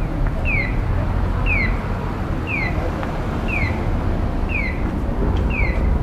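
A bird repeating a short falling chirp about once a second, very evenly, over a steady low rumble.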